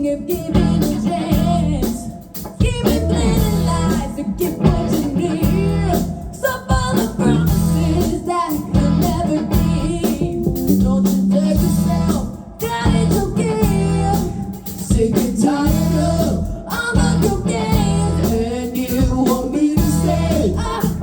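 Live blues-rock band music: electric guitar over bass and drums, with a vocal or bending guitar line.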